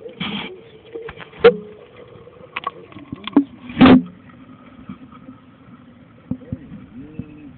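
Muffled knocks and thuds heard from inside a sealed Pelican waterproof case as it is handled and tested in the water, the two loudest about one and a half and four seconds in, over a steady low hum.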